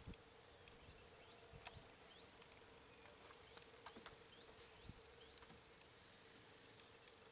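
Near silence: faint outdoor ambience with a steady low buzz, a few short high chirps and scattered faint clicks.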